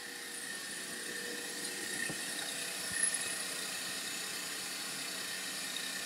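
Stand mixer running steadily as it whips egg whites toward a meringue. A couple of light knocks from a bowl being handled come about two and three seconds in.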